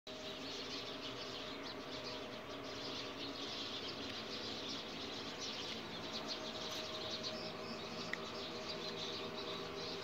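Continuous dense chirping of many small birds, with a steady low hum underneath and one sharper chirp a little after eight seconds.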